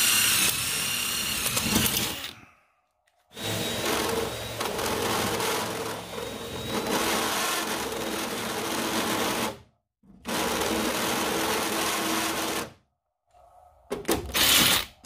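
Cordless power tool whirring in four bursts of a few seconds each, cut off abruptly with silence between, while rivets are set in sheet-aluminium boat decking.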